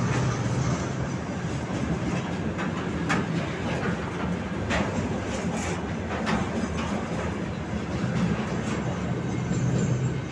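Freight train of railway tank cars rolling past: a steady rumble of steel wheels on the rails, with several brief sharp metallic screeches from the wheels in the middle stretch.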